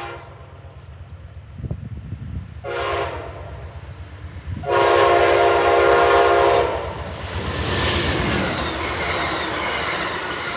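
Horn of Amtrak P42DC locomotive 108 sounding: a short blast about three seconds in, then a longer, louder blast about five seconds in. Then the locomotive's engine and the train's wheels run past, a steady loud rush over the rumble.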